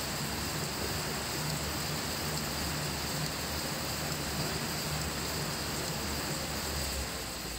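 A steady rushing noise, with a low hum that comes and goes and drops out shortly before the end, where the noise eases slightly.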